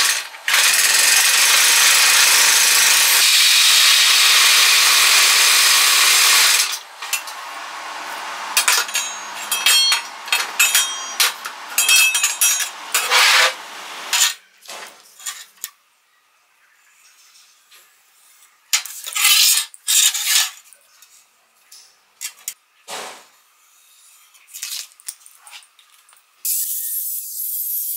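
MIG welder's arc hissing and crackling steadily for about six seconds, then scattered metal clinks and knocks of steel parts being handled on a steel workbench. Near the end a steady angle-grinder noise starts up.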